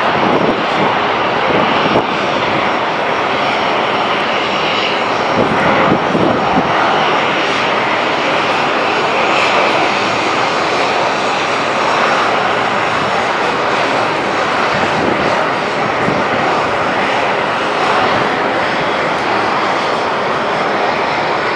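Fokker 100 jet's two rear-mounted turbofan engines running steadily at low power while the airliner taxis and lines up on the runway: an even, loud jet rush with no spool-up to take-off thrust.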